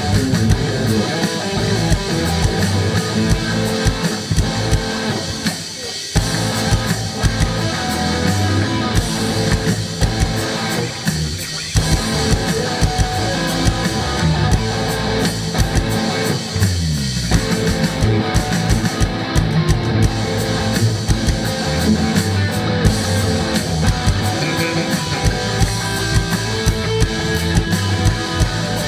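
Live rock band jamming instrumentally: electric guitar over bass and drum kit, with a few brief breaks in the playing and a low sliding run down into the last of them.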